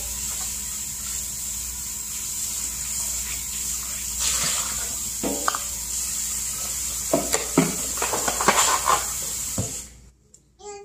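Steady rush of running water that cuts off suddenly near the end, with a few light knocks and clicks of kitchen handling over it.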